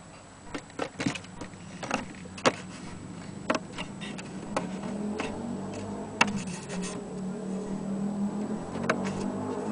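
Irregular clicks and light knocks from an old mandolin and its case being handled. A low steady hum builds up about halfway through.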